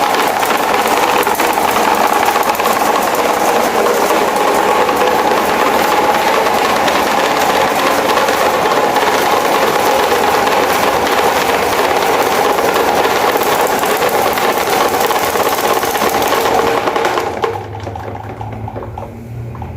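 CCE electric fan running with a loud, steady mechanical buzz and rattle, malfunctioning and vibrating so hard it creeps across the floor. Near the end it cuts off abruptly to a much quieter low hum.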